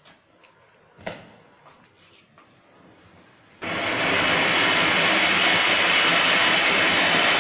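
Firework fountain (anar) spraying sparks with a loud, steady hiss that starts suddenly about three and a half seconds in. Before it are a few faint pops and crackles from the lit fuse.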